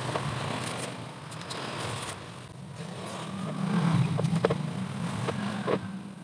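A vehicle engine running with a steady low hum that grows louder around four seconds in. Several short knocks and scrapes come from a plastic motorcycle body panel being handled on a table.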